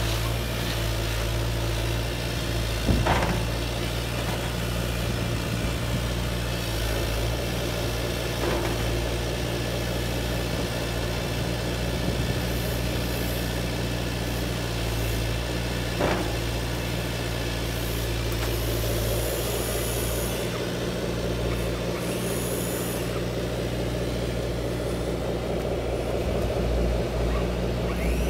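Radio-controlled excavator running with a steady low mechanical hum while it digs and loads. A few sharp knocks come through, the first about three seconds in and another near the middle.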